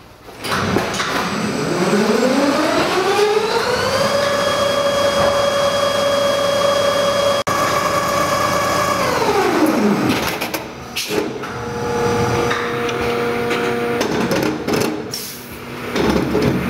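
JBF KW 765 automatic yarn-balling machine, its winding heads spinning up with a rising whine, running at a steady pitch for about five seconds, then winding down. After that, a lower steady hum with a few sharp clicks and knocks as the machine moves on through its cycle.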